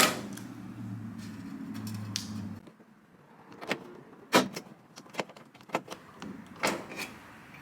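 A cheap hand rivet gun squeezed again and again on a rivet whose stem will not snap off, giving a few separate sharp clicks. A low hum underneath stops about two and a half seconds in.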